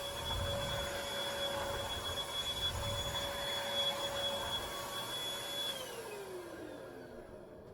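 Bissell Featherweight corded stick vacuum running with a steady whine, then switched off nearly six seconds in, its motor pitch falling as it spins down.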